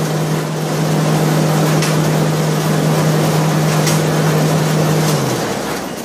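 Yanmar RHS40DL rice huller running with a steady hum and rushing noise. About five seconds in it is switched off, and the hum drops in pitch and fades as the machine winds down.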